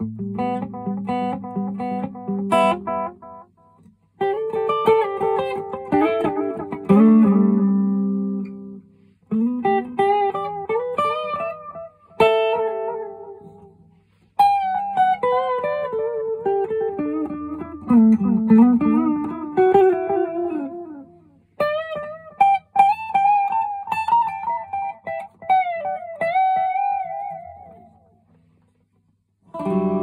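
Electric guitar (PRS SE Custom 24) through an MXR Carbon Copy analog delay pedal switched on and a Vox AC30 amp, playing short lead phrases with some string bends; each phrase is followed by repeating echoes that fade out. The phrases are separated by brief pauses, and the last one dies away a couple of seconds before the end.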